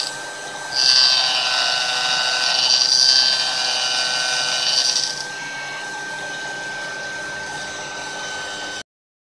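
CNC mill spindle driving a 0.8 module disc gear cutter through a brass blank: a steady whine with the louder, hissing noise of the cut from about a second in until about five seconds in, then the spindle whining on its own. The sound cuts off abruptly just before the end.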